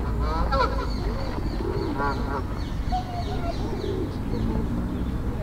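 Several birds calling: repeated short, falling chirps high up, with a few lower pitched calls about half a second and two seconds in, over a steady low rumble.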